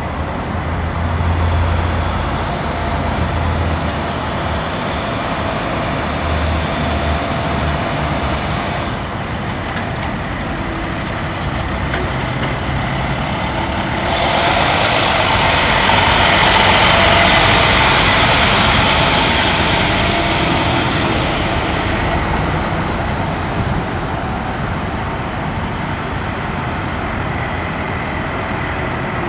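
International 7500 crane truck's Maxxforce 10 diesel engine running as the truck drives slowly, louder for several seconds in the middle as it comes close.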